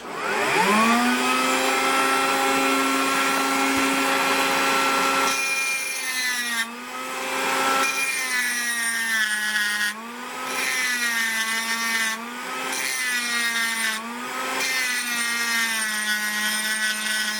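Ryobi P460 18-volt cordless rotary tool with a diamond bit spinning up to a high whine, then grinding, its pitch sagging and recovering five or six times as the bit is pressed against the work.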